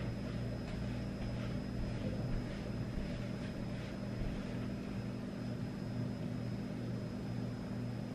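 A steady low hum, with a faint thin high-pitched whine over it and a few light ticks and taps.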